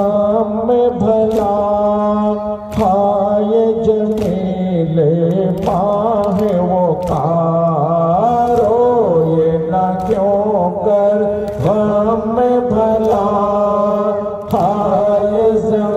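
Men chanting an Urdu noha (mourning lament) together, the melody rising and falling, with a sharp chest-beating (matam) slap about every second and a half keeping time.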